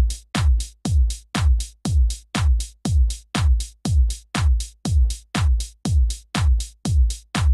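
Electronic dance background music with a steady kick drum on every beat, a little over two beats a second, each beat dropping in pitch.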